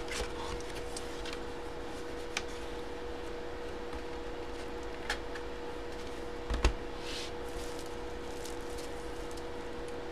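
Paper envelope and card being handled on a tabletop: a few light taps, a thump about two-thirds of the way in and a brief papery rustle, over a steady hum.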